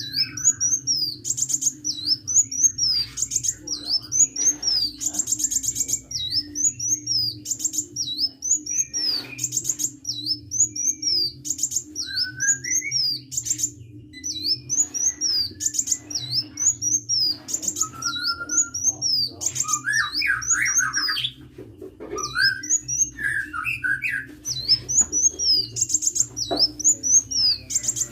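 Sunbird singing: a quick phrase of high, falling chirps repeated over and over, with a few lower whistled notes from another bird and a steady low hum underneath.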